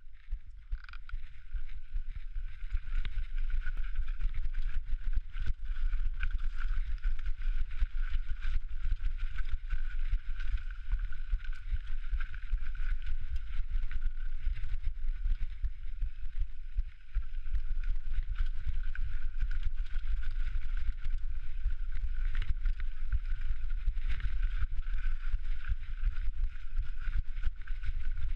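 Mountain bike rolling fast down a rocky technical trail, heard from a camera mounted on the rider or bike. There is a constant rumble and rattle of tyres and frame over rock, dotted with small knocks, and a steady high buzz runs over it. It builds up over the first couple of seconds as the bike gets going.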